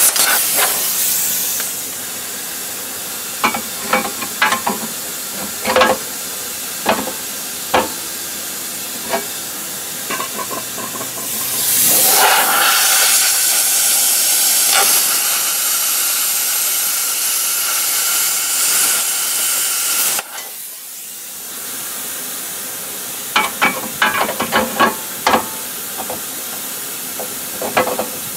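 Welding on a steel axle housing: a sizzling hiss with short crackling bursts. It is loud for the first couple of seconds, then quieter with scattered crackles. About twelve seconds in, a louder hiss swells up and runs for about eight seconds before cutting off suddenly, and a quick run of crackles follows near the end.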